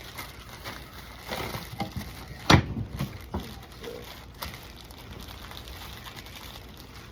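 Handling noises on a workbench: a scatter of knocks and light clatter, the loudest a single sharp knock about two and a half seconds in, then quieter.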